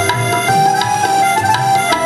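Instrumental qawwali music: a harmonium plays held melody notes over tabla strokes, with no singing.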